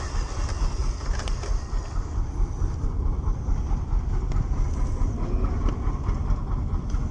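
A 1/16-scale WPL C14 RC truck driving over rough off-road ground: a continuous low rumble of its small electric drivetrain and tyres, jostling unevenly throughout.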